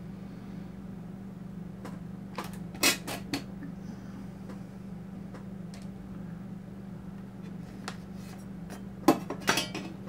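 Small metal parts and hand tools clinking and clattering as they are handled on a workbench: a few sharp clinks about two and a half to three and a half seconds in, one near eight seconds, and a quick cluster near the end, over a steady low hum.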